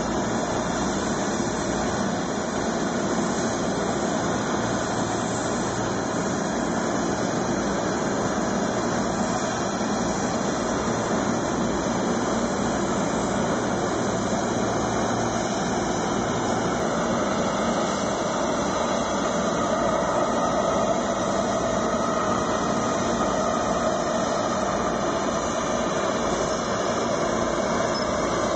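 Heavy rain hissing steadily, with the jet engines of an Airbus A330 on final approach coming through a little louder from about two-thirds of the way in.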